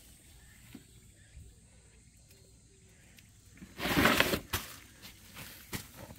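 Hand-picking of red chili peppers. A brief loud rustle about four seconds in, then a few scattered sharp snaps and clicks, as the plants are handled and the peppers are pulled off.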